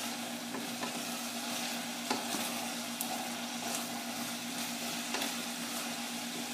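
Broad beans and dill sizzling as they are sautéed in a pot, stirred with a spatula that scrapes and taps against the pot now and then. A steady low hum runs underneath.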